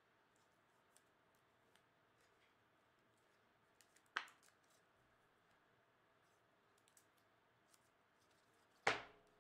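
Near silence: room tone with a few faint clicks and two brief sharp sounds, one about four seconds in and a louder one near the end.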